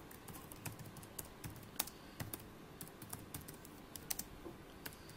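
Computer keyboard typing: light, irregular key clicks as a short line of text is typed.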